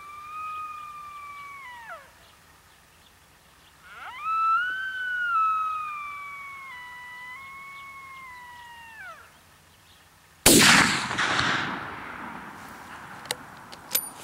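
Two long whistled deer calls, each holding its pitch and then dropping away at the end. Near the end comes a single gunshot, the loudest sound, echoing for a couple of seconds. The shot brings a deer down.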